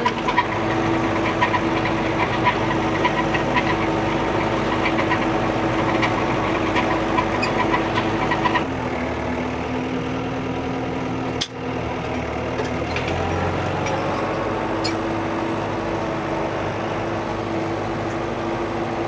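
An old, high-hours New Holland tractor's engine running steadily. About nine seconds in, its steady note drops lower for several seconds, with a brief drop-out partway through, then returns to the higher note.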